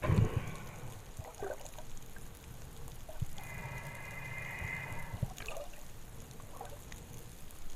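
Water sloshing and bubbling around a spearfisher's camera, with a loud splash-like rush at the start and scattered dull knocks. Near the middle, a steady high whine sounds for about two seconds.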